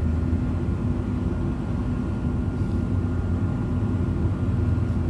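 Bus in motion heard from inside the passenger cabin: a steady low engine and road drone with a faint constant high whine.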